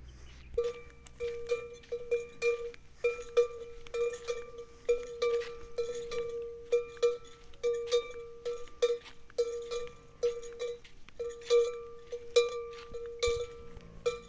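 A metal bell hanging from a walking camel's neck, clanking with each stride: irregular strikes about two or three a second, each ringing briefly with a clear tone. The clanking begins about half a second in.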